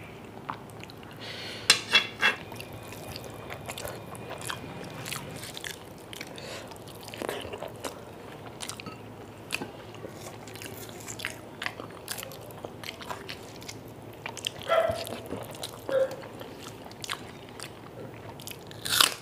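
Eating by hand: fingers mixing rice into chicken curry gravy, and chewing. Short clicks and smacks at irregular intervals, a few louder ones about two seconds in and near the end.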